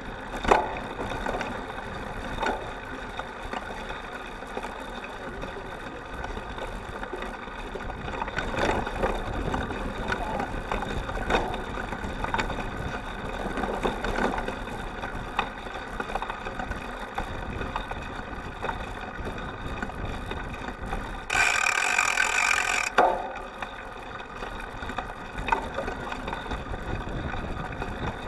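A cyclocross bike riding over grass and dirt, heard from a camera fixed to its seat stay: steady rolling and drivetrain noise with wind on the microphone, and sharp knocks and rattles from bumps. About three quarters of the way through, a louder rush of noise lasts a second or two.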